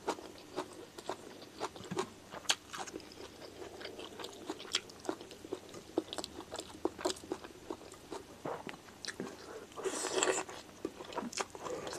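Close-up chewing of rice and chicken eaten by hand, with many short mouth clicks. About ten seconds in comes a louder bite, tearing into a piece of chicken.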